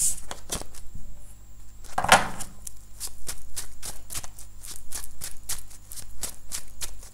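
A deck of tarot cards being shuffled by hand, the cards slapping and sliding together about three to four times a second. There is one longer, louder swish about two seconds in.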